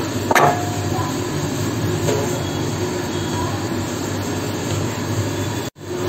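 Wooden rolling pin rolling out a ball of dough on a stone rolling board, a steady rumble over a low hum, with a sharp knock about half a second in. The sound cuts out for a moment near the end.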